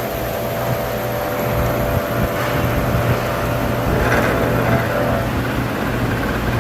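CNC milling machine running, a steady mechanical hum and whir that swells a little partway through.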